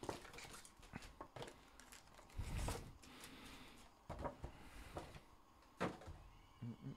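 Faint scattered clicks and knocks of things being handled, with a low thump about two and a half seconds in.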